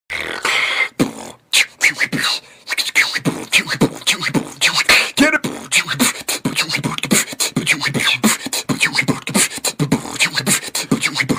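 Beatboxing: fast, rhythmic vocal percussion of mouth-made clicks and hits, with a few short pitched vocal sounds, dropping out briefly about a second in.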